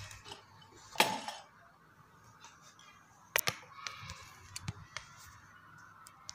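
Brass fittings and a manifold gauge set being handled: a sharp knock about a second in, then scattered light metallic clicks and clinks.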